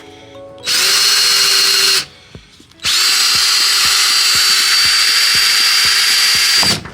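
Power drill with a 3/8-inch bit boring hanger holes through a mud-flap mat. It runs twice: a run of about a second, then one of about four seconds. Each run spins up briefly, then holds a steady high whine.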